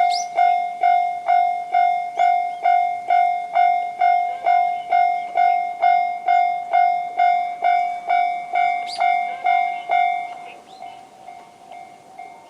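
Japanese railway level-crossing alarm ringing the JR standard electronic bell tone, a repeating ding about twice a second. About ten seconds in the bell drops to a much quieter level and keeps ringing.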